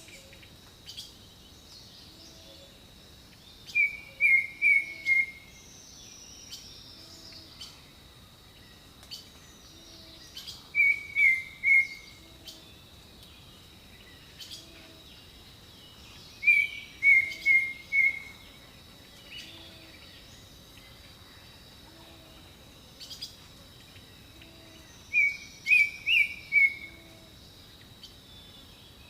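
Jungle birdsong: a bird repeats a loud phrase of three or four short falling notes about four times, several seconds apart. Under it run a steady high insect drone and soft low calls about every two seconds.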